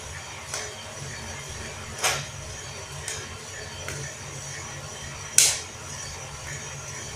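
Prototype drum coffee roaster running with a steady low hum as the drum turns the beans, with irregular sharp pops about once a second, the loudest about five and a half seconds in: coffee beans cracking in the roast.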